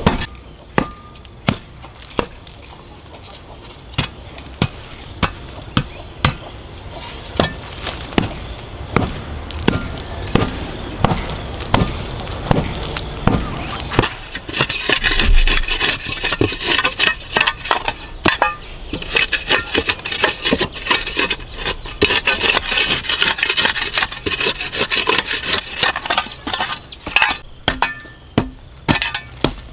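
Metal shovel striking and scraping through dry, stony soil in repeated strokes, about one or two a second.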